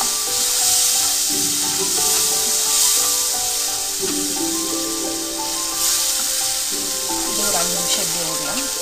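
Onion masala with freshly added tomato paste sizzling in a kadai as it is stirred and scraped around the pan with a spatula, a steady high hiss. Background music with long held notes plays over it.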